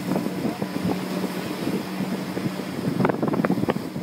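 Motor boat's engine running steadily, with wind buffeting the microphone. A brief cluster of sharp clicks comes about three seconds in.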